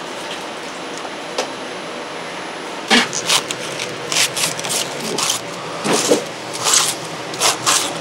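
A julienne peeler being drawn in short, scraping strokes, a few each second, starting about three seconds in over a steady room hum.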